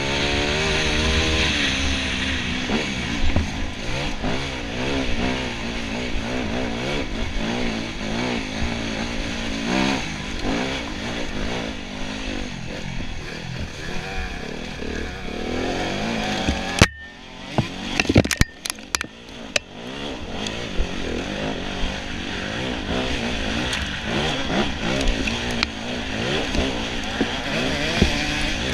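Enduro motorcycle engine revving up and down over rough going. About two-thirds of the way in it falls away suddenly after a sharp knock, with a couple of seconds of clattering knocks, then runs and revs again.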